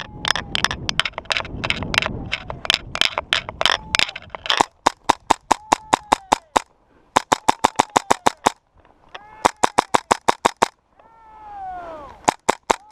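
Airsoft guns firing in rapid bursts of sharp cracks, at about six shots a second. A dense run of shots in the first few seconds mixes with rustling movement, then three separate bursts follow and a few last shots come near the end.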